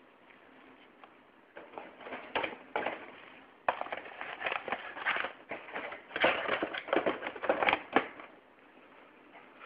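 Packaging handled by hand, crinkling and rustling in irregular bursts that begin about a second and a half in, grow louder and busier, and stop around eight seconds in.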